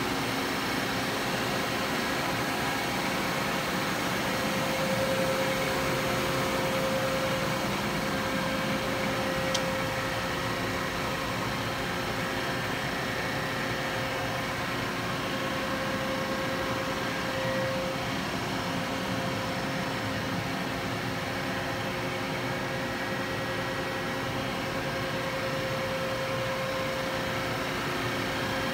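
Steady machinery hum with a faint whine, with one light tick about ten seconds in.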